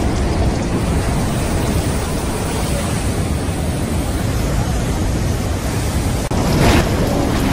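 Gale-force storm wind blowing hard on the microphone over heavy surf breaking along a seawall, a continuous loud rush of noise. A brief louder surge comes near the end.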